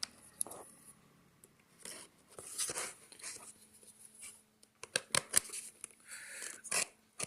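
A product package being handled and worked open by hand: scattered sharp clicks and short scraping and rustling sounds, busiest near the middle and end.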